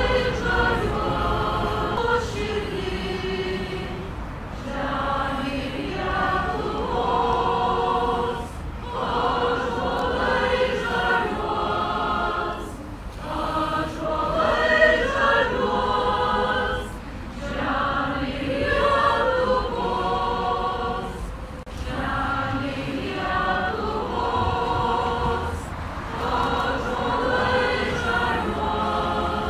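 A choir of many voices singing a song together, in phrases of about four seconds with short breaks between.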